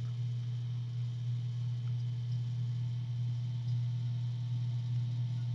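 A steady low hum with a few faint steady higher tones over it, unchanging throughout, with no typing or clicks.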